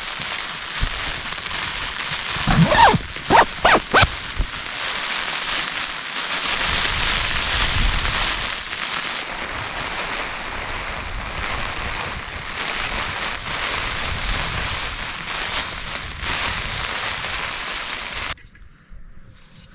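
Steady rush of wind and rain. A few brief, louder sweeping noises come about three seconds in, and the sound cuts off abruptly near the end.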